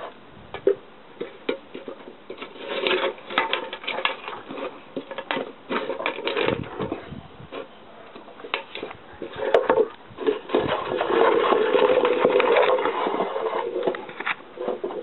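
A dog licking dishes clean: irregular wet lapping with many quick clicks and knocks of the dish, denser in two longer stretches.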